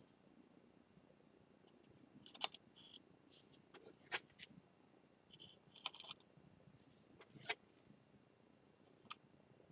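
Faint, scattered clicks and light scrapes, about six of them, as the broken pieces of a ceramic bowl are handled and fitted together.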